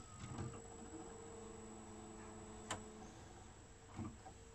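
Quiet stretch of an animated film's soundtrack played back from VHS tape: faint held low notes, a sharp click nearly three seconds in and a soft thump about a second later.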